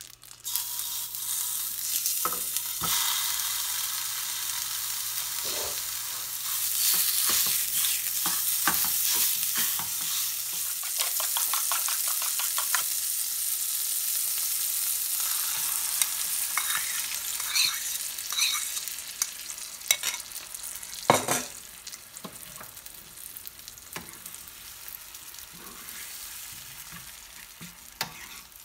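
Chorizo frying and sizzling in a nonstick skillet while a utensil stirs it, clicking and scraping against the pan. There is a loud knock about 21 seconds in, after which the sizzle is quieter.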